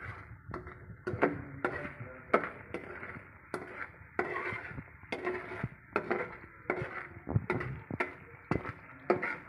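Slotted metal spatula scraping and clinking against a metal kadhai, about two strokes a second, as sugar is stirred into melting milk cream.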